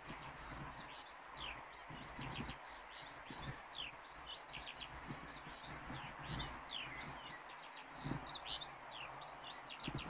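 Many small birds chirping and calling at once, a dense run of short downward-sweeping chirps, over a low rumble of wind on the microphone.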